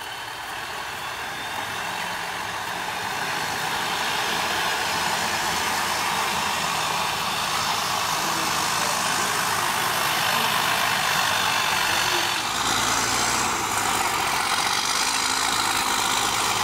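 MAN three-axle trial truck's diesel engine working under load as it climbs a steep slope of loose rock, growing louder over the first few seconds and then running steadily.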